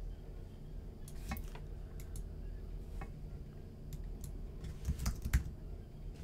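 Computer keyboard typing: scattered key clicks, with a quick run of keystrokes about five seconds in, over a low steady hum.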